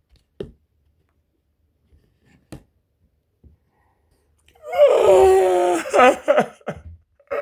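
A few faint clicks, then about five seconds in a person's loud, drawn-out wailing cry without words that breaks into a few shorter moans.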